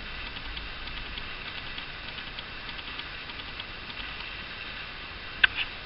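Faint, irregular small clicks and ticks of fingers working thread through the needle of a Little Vesta hand-crank sewing machine, with two sharper clicks near the end.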